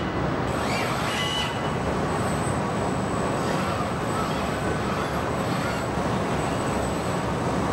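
Steady machinery din of a car assembly plant floor, with a constant faint high whine and a few brief faint high squeaks in the first second or so.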